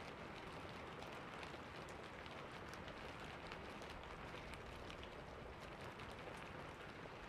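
Steady rain pattering against window glass, a constant hiss with many small drop ticks.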